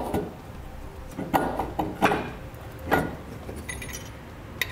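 Light metallic clinks and knocks, about five spread out, as the air helper spring assembly and its steel mounting bracket and hardware are handled up into place. One contact near the end rings briefly.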